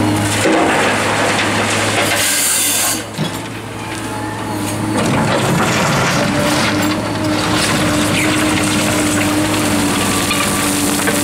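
Liebherr R944 hydraulic excavator's diesel engine running under load with a steady hum. For the first three seconds gravel pours from its bucket into a dump truck's steel body with a rushing rattle. After a short lull the bucket scrapes and digs into a pile of river gravel.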